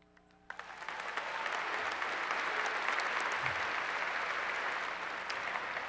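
Large crowd applauding, starting abruptly about half a second in and holding steady before beginning to die away near the end.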